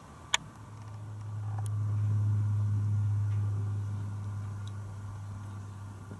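Porsche Boxster's engine and tuned exhaust giving a steady low drone at constant revs, swelling about two seconds in and then easing off. A single sharp click sounds just before it.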